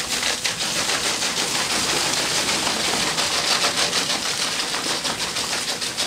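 Roadheader's rotating cutting head, its picks tearing into the coal face: a steady, dense crackling rattle of rapid clicks over a rushing noise.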